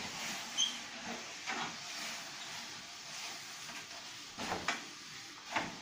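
Steady hiss with a short squeak about half a second in, then a few irregular scraping strokes, one about a second and a half in and three more near the end, from a tool being worked inside a wood-fired bread oven.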